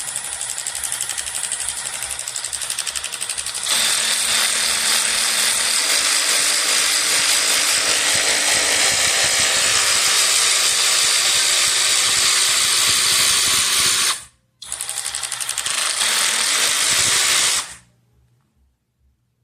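Seesii 21V cordless electric ratchet wrench motor whirring under its variable-speed trigger, running louder and faster from about four seconds in. It cuts out for a moment near the end, runs again for a few seconds, then stops.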